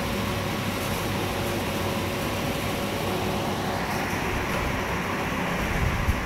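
A steady mechanical hum over an even hiss, with a few faint steady tones, and a low bump near the end.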